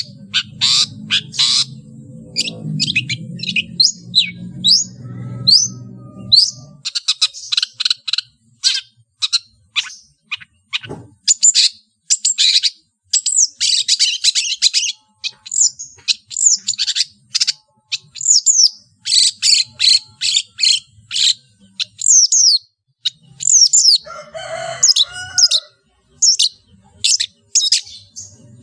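A long-tailed shrike (cendet) singing a fast run of sharp chirps and whistles, many falling in pitch. Its song is packed with calls imitated from other birds.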